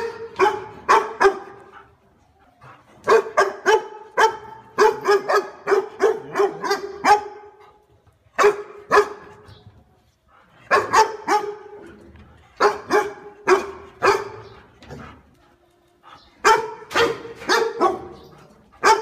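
German shepherd dog barking in runs of several quick, fairly high-pitched barks, with pauses of one to two seconds between runs.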